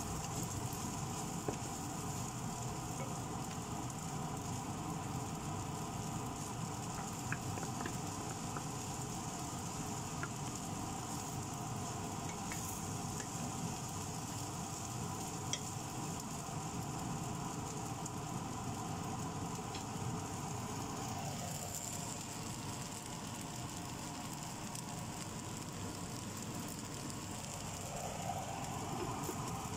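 Fried rice sizzling in a nonstick wok as a wooden spatula stirs and turns it, with scattered light clicks of the spatula against the pan, over a steady hum.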